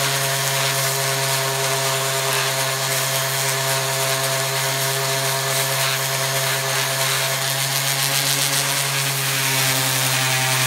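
DeWalt random orbit sander running with a steady hum and hiss as it sands down the end of the wooden axe handle sticking out of the top of the axe head's eye. It gets a little louder near the end.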